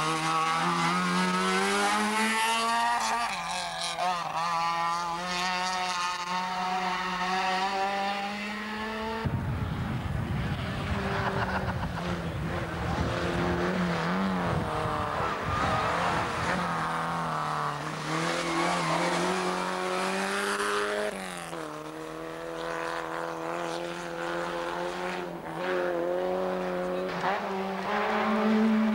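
Rally car engines running at high revs, a strong steady note that rises and dips a little. About nine seconds in, a low rumbling noise takes over for around twelve seconds, then the engine note comes back clearly.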